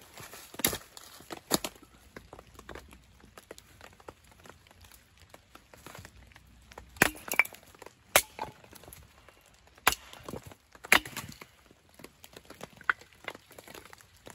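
Red cedar logs being split into kindling: sharp chopping strikes and the crack of the wood splitting. There are about six loud strikes at uneven intervals, two in the first couple of seconds and four close together in the middle, with lighter knocks and clatter between them.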